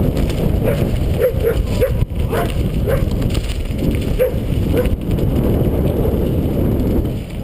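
A dog barking and yipping, about eight short calls in the first five seconds, over a steady low rush of wind on the microphone and riding noise.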